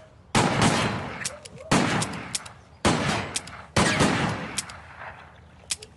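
Four handgun shots, a second or so apart, each a sudden loud crack that rings out and fades.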